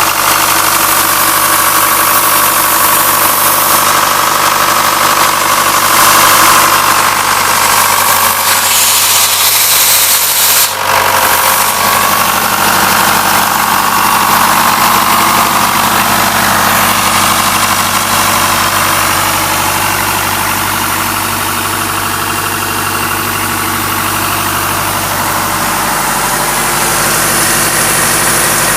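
Diesel engine of an Atlas Copco 250 CFM towable air compressor running steadily, with a brief dip about eleven seconds in.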